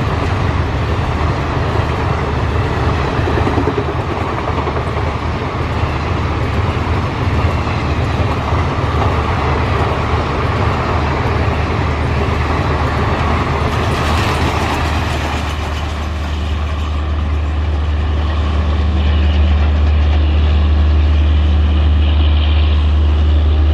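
An express train's passenger coaches passing at speed close by, a continuous rush and rumble of wheels on rail with a brief sharper, higher-pitched swell about two-thirds through. As the last coach draws away, the rush fades and leaves a steady low hum.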